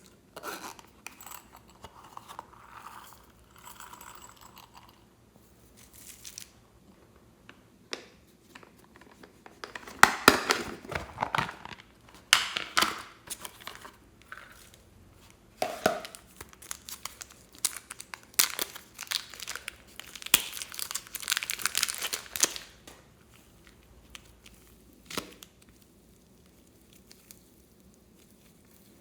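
Slime being squeezed, stretched and pressed by hand, giving irregular crackling and popping in bunches, thickest in two spells in the middle of the stretch.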